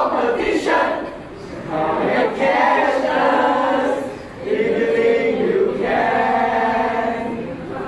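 A cheerleading squad chanting a cheer together in unison, in loud phrases with short breaks about a second in and again about four seconds in.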